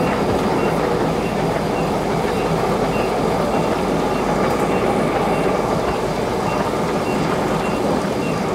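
Heidelberg Speedmaster sheet-fed offset printing press running at production speed: a steady, loud, dense mechanical clatter of its printing units and ink rollers, with a faint short high tone repeating about twice a second.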